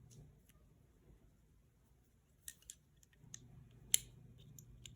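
A few short, sharp metal clicks of small Sig P220 pistol parts being handled, the loudest about four seconds in.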